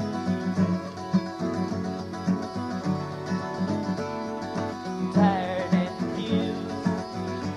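Acoustic guitars playing a song's instrumental introduction, picked and strummed notes ringing together.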